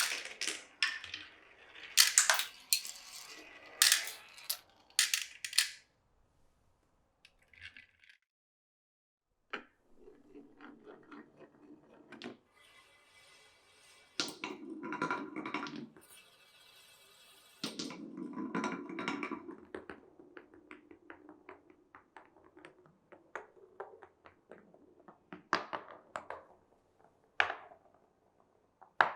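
Glass marbles running through a wooden marble run: a quick string of sharp clicks and clacks as they drop onto and knock against wooden pieces, then, after a short silence, stretches of rolling rumble along the tracks mixed with rattling, and more scattered clicks near the end.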